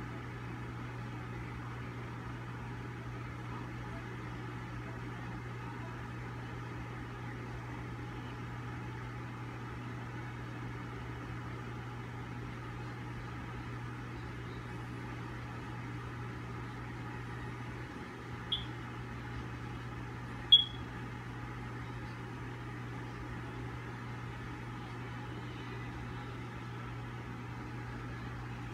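Steady low mechanical hum, broken past the middle by two short high-pitched chirps about two seconds apart, the second louder.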